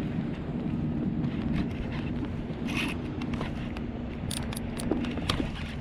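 Spinning fishing reel being cranked, a steady zipper-like whirr with a few sharp clicks in the second half, as a fish is hooked and reeled in.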